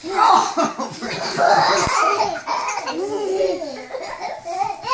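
Young children laughing hard, a long run of high-pitched laughs, with a dull bump about two seconds in.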